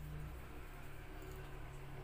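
Quiet room tone with a steady low hum and no distinct sound.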